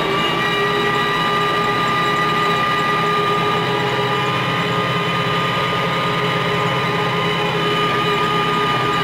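Antonio Carraro 10400 TTR tractor's diesel engine running steadily while driving a PTO-driven BCS Rotex NT R6 mower, heard from inside the cab, with a steady high-pitched whine over it.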